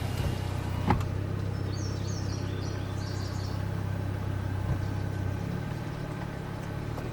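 Steady low drone of a vehicle's engine while driving. A single knock comes about a second in, and a short run of bird chirps is heard about two to three seconds in.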